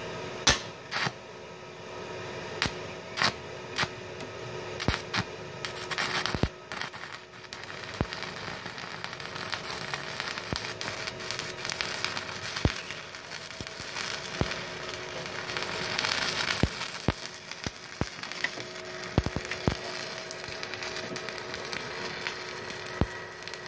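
Stick (SMAW) welding arc from a MultiPro EG 200A-SC IGBT DC inverter welder: a few sharp pops as the electrode strikes the arc over the first few seconds, then a continuous crackle with frequent sharp pops as the arc burns steadily. A faint steady hum sits underneath.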